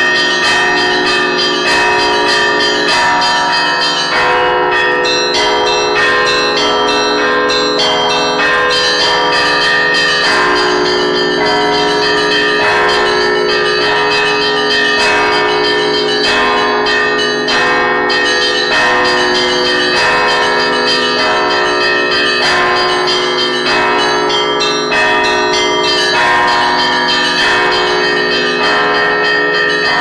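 Russian Orthodox church bell peal (zvon): a bell ringer sounds a row of small chiming bells by rope, a fast, continuous pattern of overlapping strikes over the steady lingering hum of the bells.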